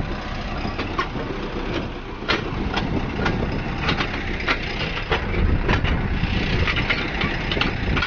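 Farm tractor engine running steadily, with irregular sharp clicks and knocks over it.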